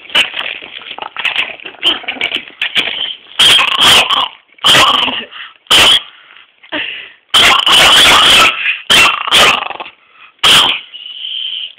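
Dog yipping and whimpering in irregular short bursts, some of them very loud.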